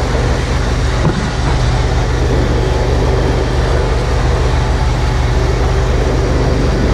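Engine of heavy farm machinery running steadily at a constant speed, a loud low hum that holds one pitch throughout.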